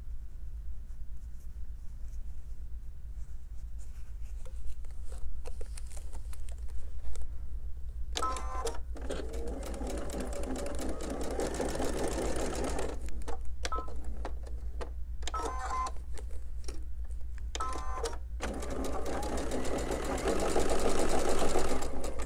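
Sewing machine stitching a seam across quilt pieces, running in spurts: faint and slow at first, then a long fast run about 8 seconds in, a few short bursts, and a second fast run near the end.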